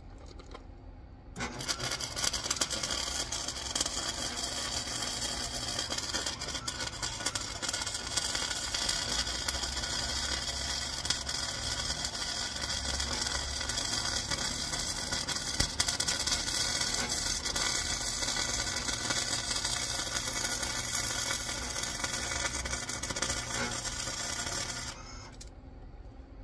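Electric arc welder running a continuous weld bead on steel truck sheet metal: a steady, dense crackling sizzle that starts about a second in and cuts off shortly before the end.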